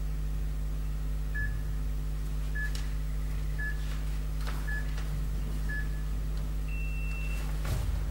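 Interval timer on a phone beeping a countdown: five short beeps about a second apart, then one longer, higher beep that marks the start of the work round. A steady low hum runs underneath.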